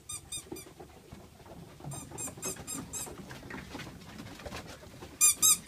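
German shepherd puppies whimpering in quick runs of short, high squeaks, with the three loudest squeaks near the end. Soft pattering and shuffling of the puppies moving sits underneath.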